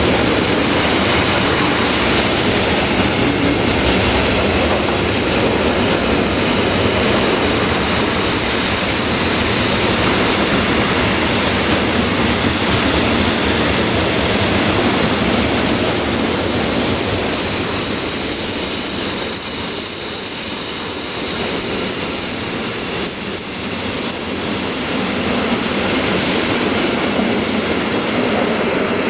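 Container flat wagons of an intermodal freight train rolling past over the rails. A steady high wheel squeal comes in about four seconds in, fades for a few seconds, then returns louder from about the middle on.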